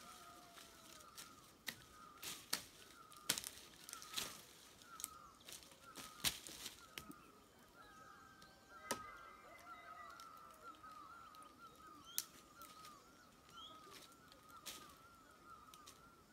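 Sharp irregular snaps and cracks of twigs and leafy branches being cut with a sickle, over a small bird's quick, steady run of faint high chirps.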